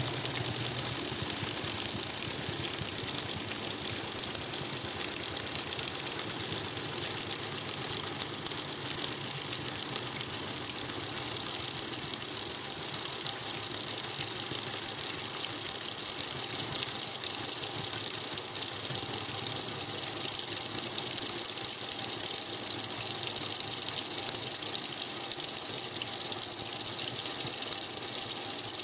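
Electrolux Top 8 top-loading washing machine filling with water for the rinse: a steady rush of water pouring into the tub.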